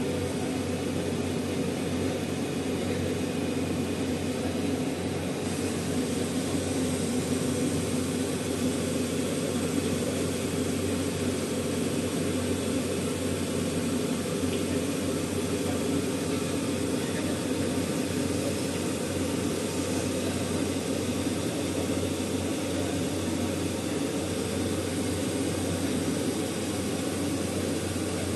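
Flying galvo CO2 laser cutting machine at work on fabric: a steady rushing air noise from its exhaust fans and air-assist blowing, with no breaks or changes in level.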